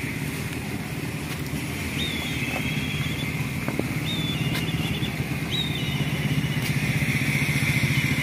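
A small engine running steadily, slowly growing louder. Three short high chirps sound over it.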